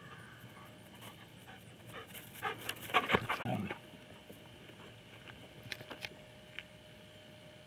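Rough collie panting in a quick run of breaths, loudest about three seconds in, with a few faint clicks near the end.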